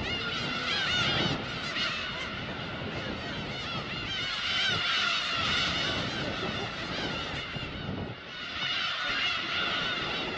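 A colony of black-tailed gulls calling: many short, arching calls overlap without a break, thinning briefly about eight seconds in.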